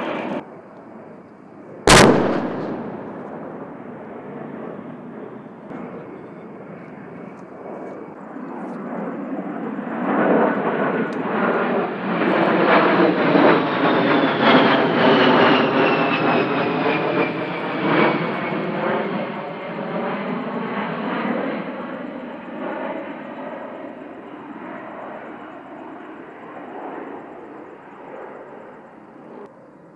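A single sharp bang about two seconds in, then the twin turbofan engines of an A-10 Thunderbolt II passing overhead: the jet noise swells, a turbine whine falls in pitch as the aircraft goes by, and the sound fades away.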